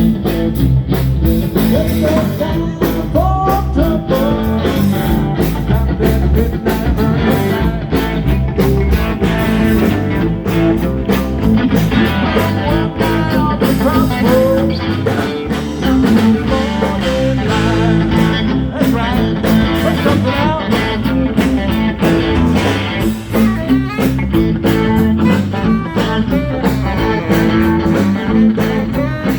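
Live blues band playing, an electric guitar lead with bending notes over bass and drums.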